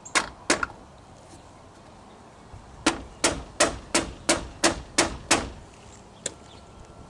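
Hammer tapping a screwdriver held in a drilled hole in the plastic bumper trim, driving a broken-off fastener end into place. Two taps, a pause, then eight even taps about three a second.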